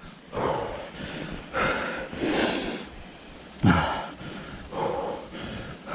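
A person breathing hard and out of breath after exertion, a run of heavy breaths about a second apart.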